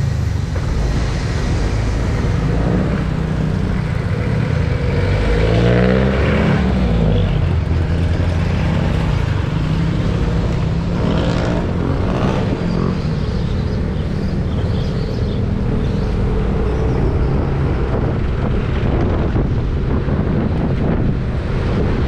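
A road vehicle's engine running while on the move, with steady road and wind noise; the engine note shifts briefly about six seconds in.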